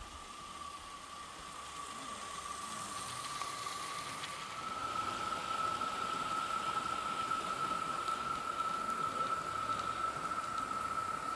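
Bowande live steam garden-railway locomotive hissing steam as it stands on the track, the hiss growing louder about four seconds in. A steady high tone runs under it.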